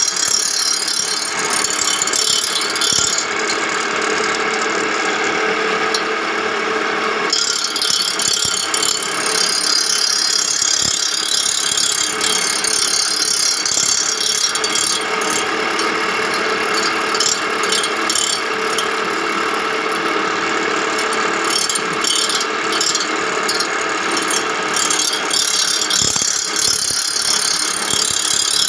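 Reel grinder sharpening a greensmower's cutting reel: the grinding wheel runs against the reel blades in a steady, loud metallic grinding, thinner in the highs for a few seconds near the start.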